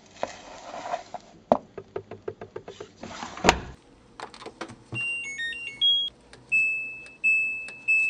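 Samsung Eco Bubble washing machine: rustling and light clicks of the detergent drawer being handled, a sharp knock as it is shut about three and a half seconds in, then the control panel beeping: a short tune of several notes followed by single beeps at one pitch, about every 0.6 s, as settings are selected.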